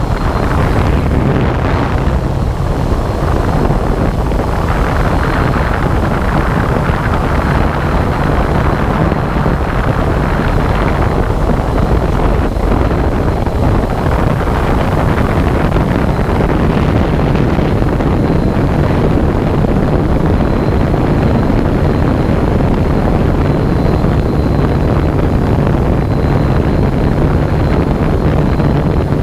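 A small aircraft in flight, heard from on board: a steady motor drone under an even rush of wind on the microphone, unchanging throughout.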